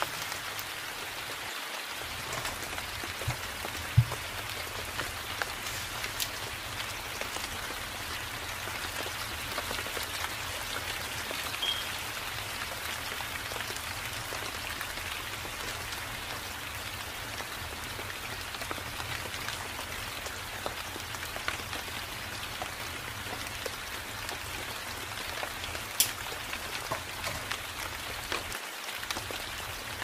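Steady forest rain falling, an even hiss of drops on leaves, with scattered sharp clicks; the two loudest come about four seconds in and a few seconds before the end.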